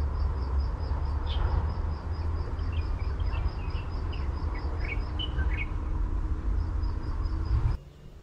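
Birds chirping: a high note repeated about four times a second, with scattered short chirps in between, over a steady low rumble. The sound drops away abruptly near the end.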